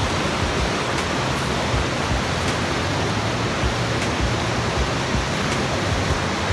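Rushing white water of the Kalambo River pouring over rock ledges near the top of Kalambo Falls: a loud, steady roar.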